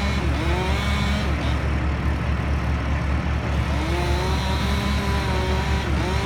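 Crane engine running with a steady low throb and a whine over it. The whine's pitch dips and climbs back about a second in, then rises and dips again near the end, as the engine is throttled.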